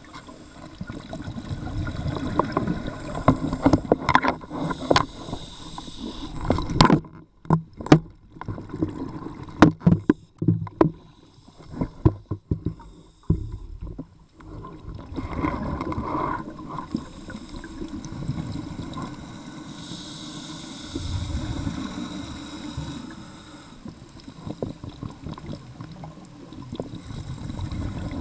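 Underwater sound picked up by a diver's camera: water rushing and bubbling in irregular surges, with a run of sharp knocks and clicks near the middle.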